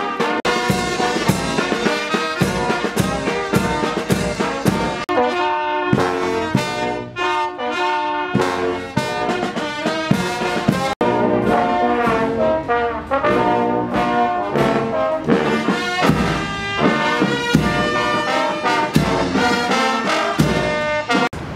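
Military brass band playing a tune, trumpets and trombones to the fore, with a quick succession of notes; the sound drops out for an instant near the middle.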